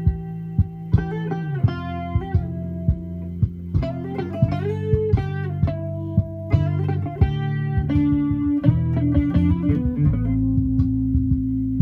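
Guitar played by plucking: a run of sharp plucked notes and ringing held notes over strong low bass notes.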